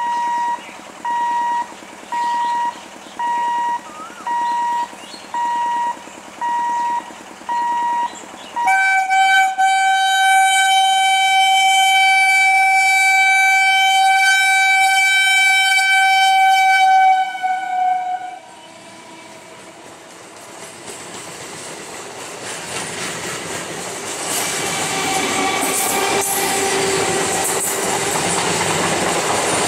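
An electronic beeper sounds about once a second for the first eight or nine seconds. Then the EMU local train's horn blows one long, steady note for about nine seconds and wavers just before it stops. The train then comes up and passes, its wheels rumbling and clattering on the rails, growing louder.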